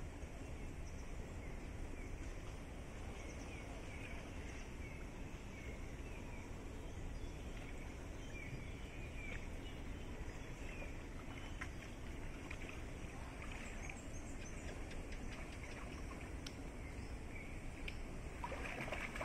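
Faint outdoor ambience: a steady low background rumble with scattered faint high chirps through the middle.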